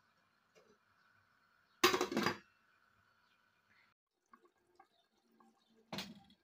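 A pot of lamb curry simmering on a stovetop with faint bubbling, broken by two short, loud knocks, one about two seconds in and one near the end.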